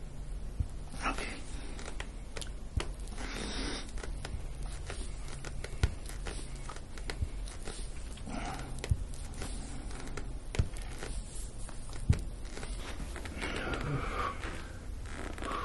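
Deep-tissue work on a bare back: skin and clothing rubbing and rustling under the chiropractor's forearm and hands, with several sharp, separate clicks scattered through and a steady low room hum underneath.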